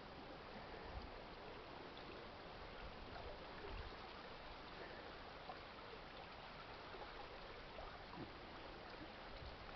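Faint, steady rush and gurgle of seawater swirling in a strong current through a harbour during a sudden meteotsunami surge that raised the water about 1.5 m in a few minutes. A few soft low thumps come through.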